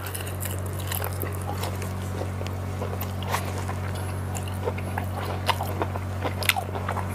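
Close-miked chewing of fried beef lung, with many scattered short mouth clicks over a steady low hum.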